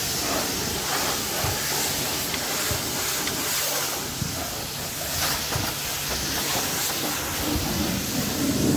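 High-pressure plunger-pump car washer spraying a steady water jet onto a car, a continuous hiss with the pump's low hum underneath.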